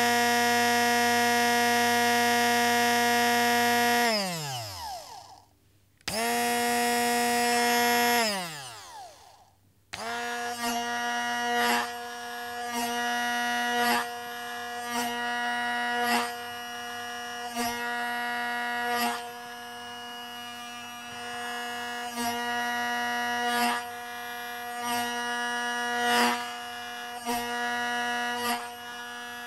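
Electric kitchen blender motor running at a steady high speed, switched off about four seconds in and winding down with falling pitch. It starts again, stops and winds down once more, then restarts and runs more quietly, with short swells in loudness every second or two.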